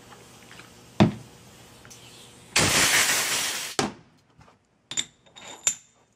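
A steel pinion nut being cleaned with acetone and handled on a steel bench: one sharp knock about a second in, then about a second of rag scrubbing, then a few light metallic clinks with a short ringing tone.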